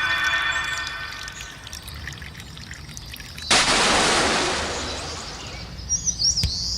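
A sudden loud rush of noise about halfway through, like a splash or gush of water, fading away over about two seconds. Sustained electronic tones fade out at the start, and short high chirps come near the end.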